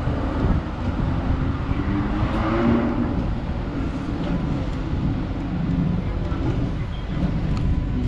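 Melbourne Z-class tram running along the street: a steady low rumble of wheels on rails and the car body, with street noise. A brief swell of higher hiss comes about two seconds in.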